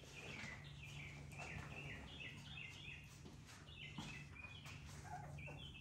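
Four-week-old XL pit bull puppies whining in a rapid run of short, high, falling cries while being handled for deworming.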